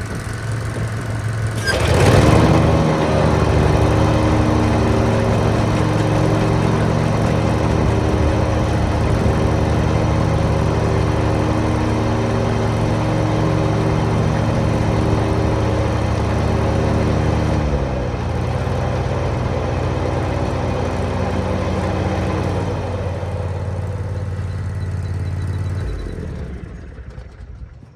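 Lawn mower engine on a test run after its belt was refitted, running steadily with a brief surge about two seconds in. A little past halfway it drops slightly in speed, and near the end it winds down and stops.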